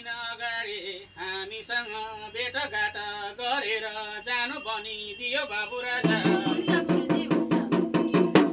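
A man chanting in a wavering, melodic voice, the chant of a jhakri's healing ritual. About six seconds in a fast, steady drum beat of about four strokes a second starts under the chant and becomes the loudest sound.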